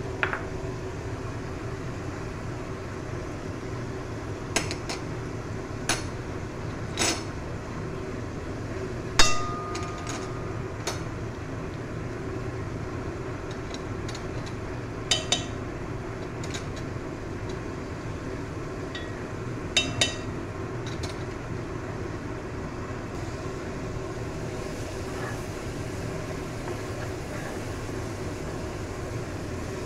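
Utensils clinking and tapping against a granite-coated frying pan and spice containers while spices are added to frying onions: about a dozen sharp clinks scattered through the first twenty seconds, the loudest about nine seconds in with a brief ring. A steady low hum runs underneath.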